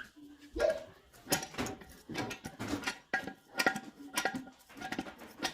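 Irregular clicks and clinks of hard objects being handled, about a dozen sharp knocks, some ringing briefly.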